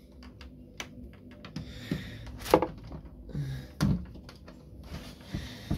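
Handling noise: scattered knocks, clicks and rubbing as hands work at tubing and fittings behind an aquarium cabinet.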